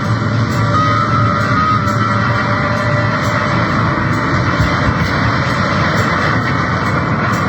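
Loud, dense distorted noise music: a steady, unbroken wall of harsh, guitar-like distortion with no clear melody.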